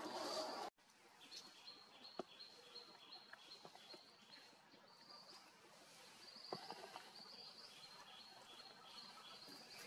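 Faint, high, rapid chirping from a bird, short notes in two alternating pitches repeated about three times a second. It starts just after an abrupt cut about a second in, and a few soft clicks come from dry leaves underfoot.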